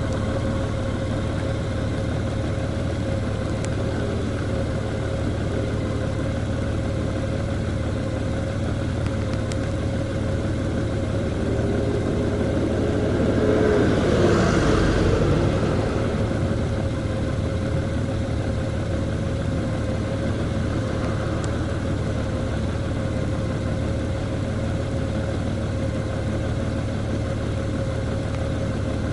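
Steady engine and road noise of a vehicle driving along a road, with a hum and a constant whine underneath. About halfway through the noise swells for a few seconds, like another vehicle going past, then settles back.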